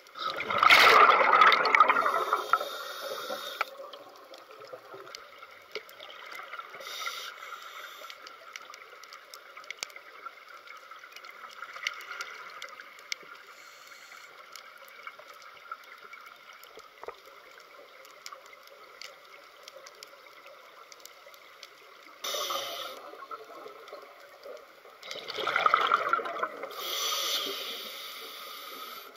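Scuba regulator exhaust bubbles gurgling and rushing past an underwater camera, in three bursts: about a second in, and twice in the last seven seconds. Between them a faint steady underwater hiss with scattered small ticks.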